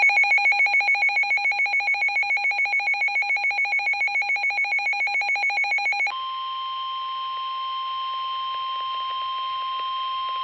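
Emergency Alert System alert tones for a severe thunderstorm warning. A rapidly pulsing electronic alarm tone, ringing like a bell, switches about six seconds in to one steady, unbroken tone: the 1050 Hz weather-radio warning alarm tone.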